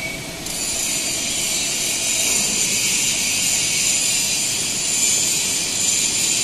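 Motorized slide of a welding torch manipulator running with a steady high-pitched hissing whine that starts suddenly about half a second in.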